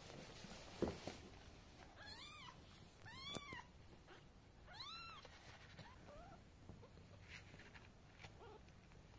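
Kitten meowing: three high, rising-and-falling meows about a second apart, then a fainter fourth. A single knock comes just before them, near the start.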